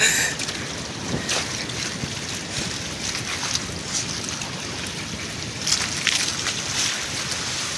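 Steady wind on the microphone and sea noise on an outrigger boat's deck, with a few short splashes and knocks as fish are handled in a basin of water, the clearest about six seconds in.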